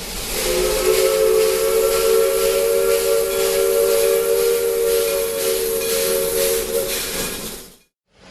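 Narrow-gauge steam locomotive's chime whistle sounding one long blast, a chord of three notes held steady over loud steam hiss. The sound cuts off abruptly near the end.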